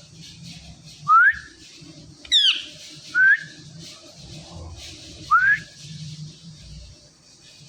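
Female Indian ringneck parakeet giving short whistled calls, four in a row about a second apart. Most rise in pitch; one drops from high.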